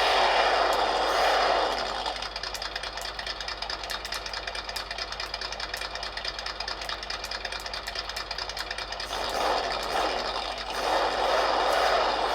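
Micro RC crawler's built-in engine-sound module playing a simulated engine: revving for the first couple of seconds, dropping to a quieter idle with a rapid even ticking, then revving up again about ten seconds in.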